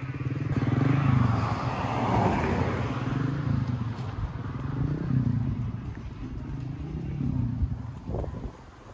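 Road traffic: a motor vehicle passes by, loudest in the first three seconds, over a continuous low rumble.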